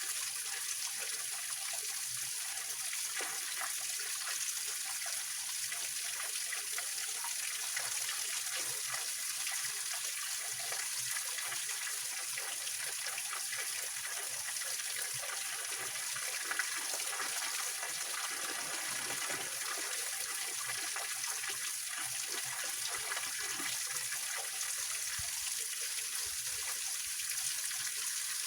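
Small waterfall and mountain stream splashing and trickling over rocks, a steady rush of water.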